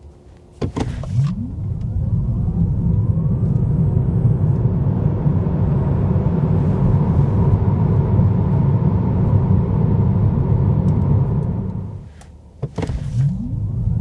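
Tesla Model 3 Highland Long Range RWD accelerating hard from a standstill: the electric drive motor's whine rises in pitch over the first few seconds under a growing rumble of tyre and road noise. The noise falls away about twelve seconds in, and a second launch starts near the end with a click and a fresh rising whine.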